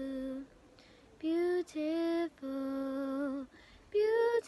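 A girl singing solo and unaccompanied, in long held notes: one note ends about half a second in, and after a short pause several more sung notes follow, one wavering slightly as it ends.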